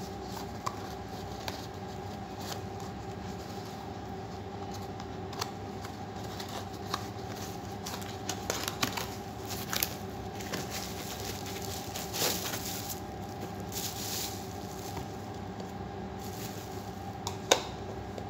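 Cardboard packaging being handled and opened by hand: scattered taps, scrapes and rustles as the box is slid open and the mug is lifted out, with two sharp clicks near the end. A steady low hum runs underneath.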